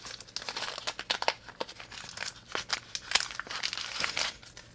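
Plastic packaging bag crinkling and crackling in quick irregular bursts as it is pulled and squeezed to work a snug-fitting device out of it.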